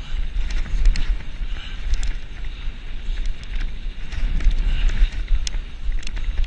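Wind rumbling on the microphone of a bicycle speeding down a rough dirt track, with frequent sharp clicks and rattles from the bike jolting over bumps.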